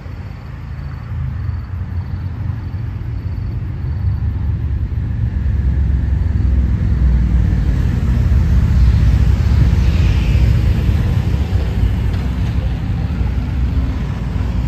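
Road traffic rumble: a low, steady noise that grows louder over the first several seconds and then holds.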